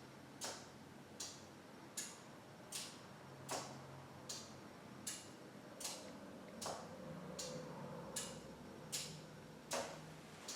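Motorcycle LED turn-signal flasher relay clicking steadily, about one click every three-quarters of a second, cycling at roughly the stock flash rate.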